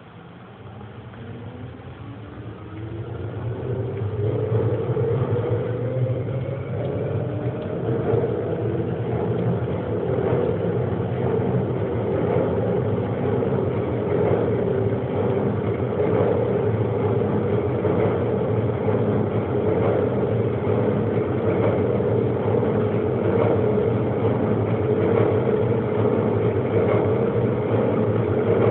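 New York City subway shuttle train pulling away and accelerating: the traction motors' whine rises in pitch and the sound grows louder over the first several seconds. The train then runs at steady speed with a continuous rumble and repeated clicks from the rails.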